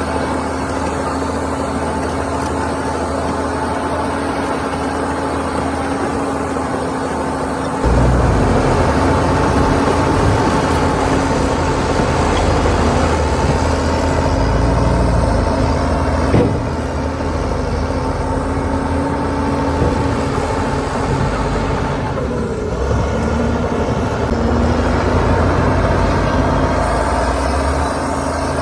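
Heavy diesel earthmoving machinery running steadily. A deep, heavier engine rumble joins about a third of the way in, and there is a single sharp knock about midway.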